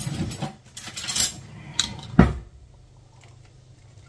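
Tin of sweetcorn being emptied with a metal utensil: scraping and clinking against the can, then a heavier knock about two seconds in.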